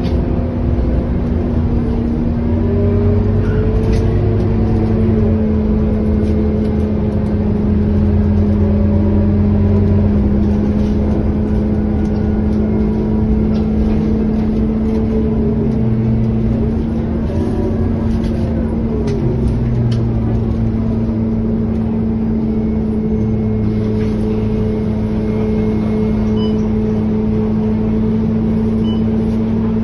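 Scania K230UB city bus's diesel engine and drivetrain heard from inside the cabin while driving: a steady droning hum with a constant whine, its pitch shifting a little a few times as the bus speeds up and eases off.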